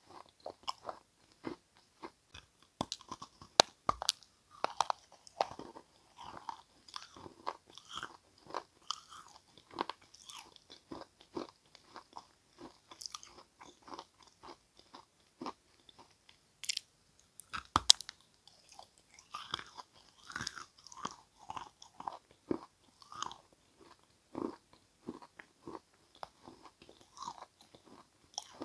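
Mouth crunching and chewing pieces of edible clay and chalk crumb in a steady run of irregular crackling bites. A couple of sharper, louder snaps stand out, one a few seconds in and one around the middle.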